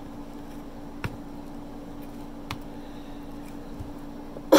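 Faint clicks of food being handled in a foil tray over a steady low hum. Right at the end comes a sudden loud vocal sound falling in pitch.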